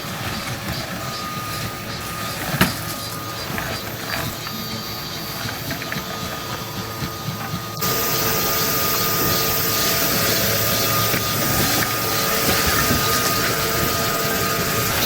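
Valley stream water rushing as a steady hiss. About eight seconds in it suddenly becomes louder and brighter.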